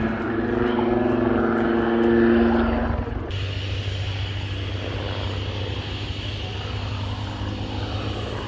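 Propeller aircraft engine running in flight, first as a steady pitched note. About three seconds in it cuts abruptly to a different, lower steady engine sound.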